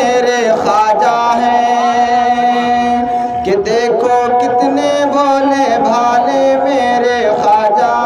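A man singing an Urdu naat into a microphone, amplified over a loudspeaker system, with long held notes that waver and bend in pitch.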